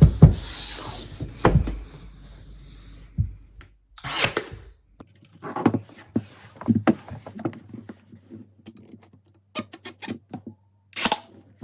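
A series of irregular wooden knocks and thuds from a wooden skirting board being cut and handled to nail in place: a heavy thud at the start, another about a second and a half in, then scattered lighter knocks and clicks.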